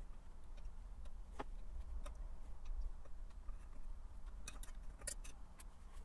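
Faint scattered clicks and taps of metal tweezers and small 3D-printed PLA pieces against a stainless steel saucepan as the pieces are lifted out of the water, several in quick succession near the end, over a low steady hum.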